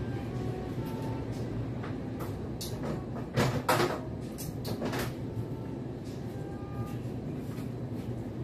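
Metal clattering and knocking as a range-hood grease filter is unclipped, pulled out and handled, with the loudest knocks about three and a half seconds in.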